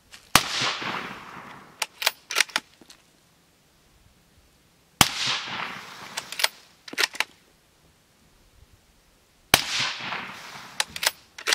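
Three suppressed shots from a bolt-action .308 Remington 700 with a Liberty Amendment suppressor, firing supersonic ammunition, about four and a half seconds apart. Each shot trails off in echo from the surrounding dirt banks and is followed by a few sharp clicks as the bolt is cycled.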